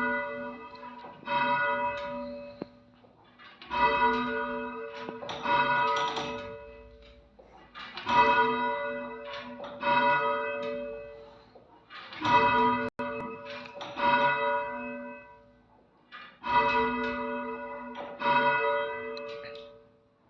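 Bells rung in repeated rounds: a group of several strikes with the same set of pitches, left to ring and fade, then the next group, about every four seconds.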